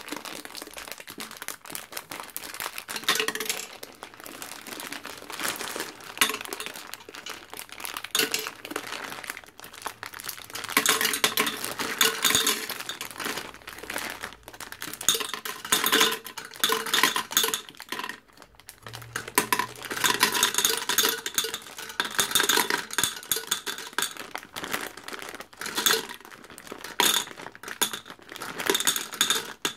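Peanut M&Ms pouring from a plastic bag into a glass gumball-machine globe: a dense clatter of candies clinking on the glass and on each other, with the bag crinkling and a short pause partway through.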